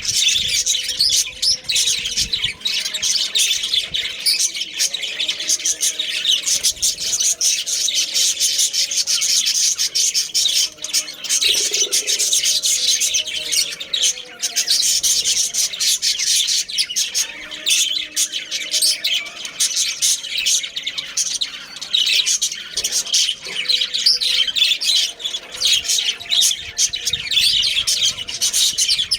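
Budgerigars chattering and chirping continuously, a steady dense stream of warbling chirps and squawks.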